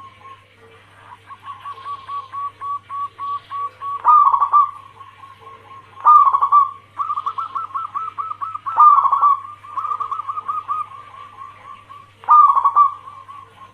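Zebra doves (perkutut) cooing: rapid series of short, even notes, broken every two to three seconds by a louder, rougher trilled phrase.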